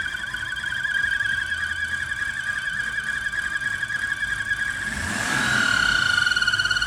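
BMW N52 inline-six engine running with a steady, slightly wavering high-pitched whistle from the oil filter housing, caused by a crushed oil filter. About five seconds in, the whistle drops a little in pitch and gets louder.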